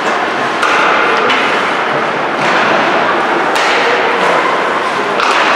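Rink noise during live ice hockey play: a steady wash of skating and arena sound, cut by four sharp knocks from sticks and puck.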